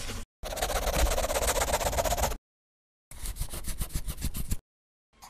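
Pencil sketching on paper: one long scratchy drawing stroke lasting about two seconds, a short pause, then a second and a half of quick back-and-forth hatching strokes, and fainter scratching near the end.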